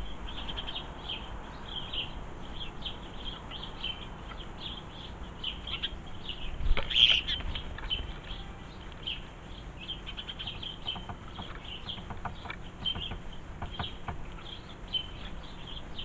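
House sparrows chirping over and over, several short high chirps a second, with a brief louder clatter about seven seconds in.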